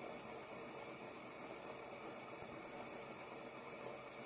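Fidget spinner's ball bearing spinning, a steady faint whirring hiss.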